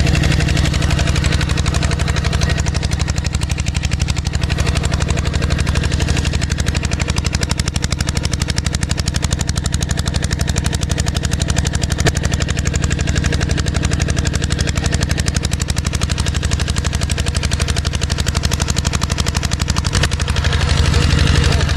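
Small diesel engine driving an irrigation water pump, running steadily at a constant speed with a rapid, even beat.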